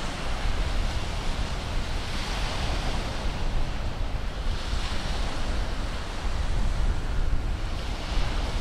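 North Sea waves breaking and washing on a shingle beach, the hiss swelling about three times, with wind rumbling on the microphone throughout.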